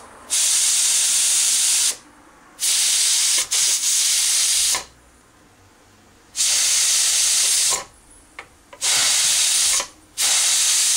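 Steam hissing out of a stovetop pressure cooker's weighted valve as the weight is lifted with a cloth to let off pressure. It comes in loud bursts of one to two seconds, about five of them, each starting and stopping sharply.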